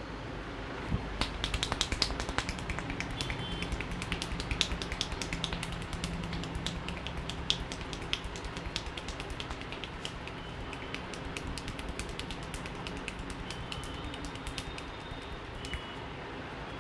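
Barber's hands working fast on a customer's head in an Indian head massage: a rapid run of sharp snaps and taps, several a second, loudest in the first half and thinning out later, over a steady low traffic hum.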